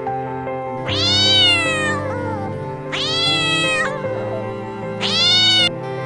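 A domestic cat meowing three times, each meow about a second long and rising then falling in pitch, the last one shorter, over background music.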